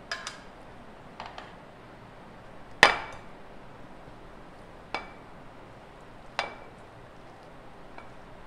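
A serving plate and a knife clinking against the rim of a mixing bowl as diced fruit is scraped off the plate into it. There are about six sharp clinks with a brief ring, a second or two apart, and the loudest comes near three seconds in.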